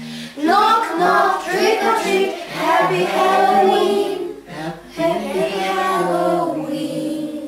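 A group of children singing together over music, with a short break between phrases about four and a half seconds in.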